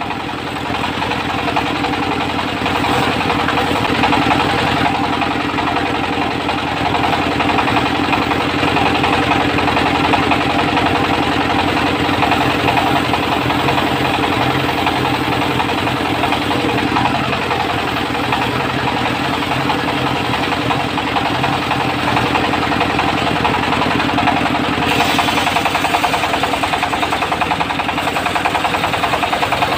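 Diesel engine running steadily with a fast, even chug, driving a portable circular sawmill. About 25 seconds in, a higher hiss joins the engine sound.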